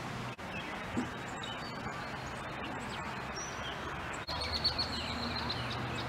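Songbirds chirping over steady outdoor background noise. From a little past the middle, one bird sings a run of quick high notes.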